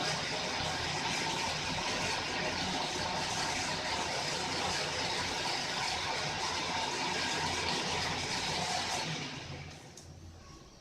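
Lathe running through a thread-cutting pass, a steady mechanical hum and hiss that dies away about nine seconds in as the machine is stopped.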